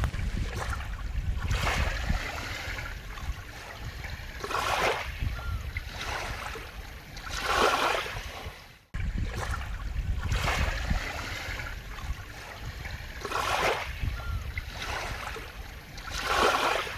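Small waves washing onto a beach, one swell of surf about every three seconds, over a steady low rumble of wind on the microphone.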